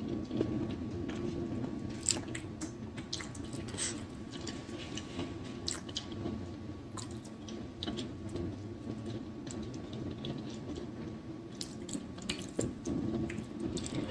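Close-miked chewing of wet, saucy food, with steady mouth noise and many scattered wet smacks and squishes.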